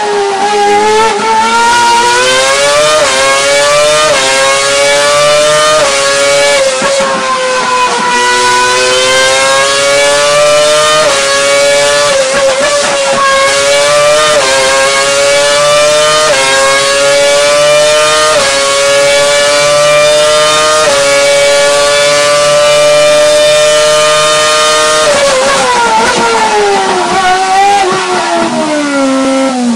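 Ferrari Formula 1 engine running at high revs on a dynamometer, its pitch climbing and dropping back again every few seconds. Over the last few seconds the revs fall away and the engine winds down.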